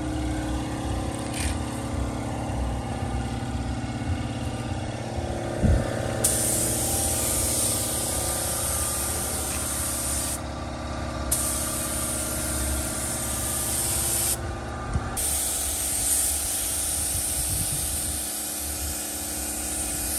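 Compressed-air spray gun hissing as it sprays coating onto a car's rear fender flare, the hiss getting strong about six seconds in and breaking off briefly twice. A steady mechanical hum runs underneath.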